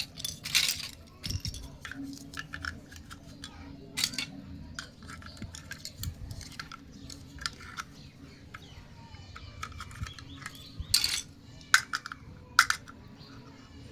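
Small plastic toy kitchen pieces being handled and set down: a run of sharp clicks, taps and clatters. The loudest cluster comes about eleven to twelve and a half seconds in.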